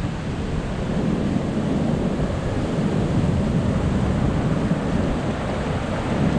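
Ocean surf breaking and washing up a beach, with wind buffeting the microphone: a steady, heavy rushing noise with no distinct events.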